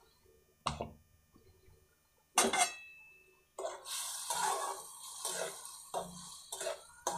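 A metal fork and a slotted steel spatula knocking on and scraping around the inside of a metal cooking pot while stirring a wet onion-tomato paste into frying liver. Two sharp clinks come in the first couple of seconds, then steady stirring strokes about two a second.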